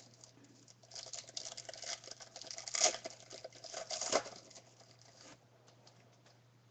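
Trading cards being handled and shuffled: a dense run of rustling and small clicks, louder twice around three and four seconds in, dying away past five seconds.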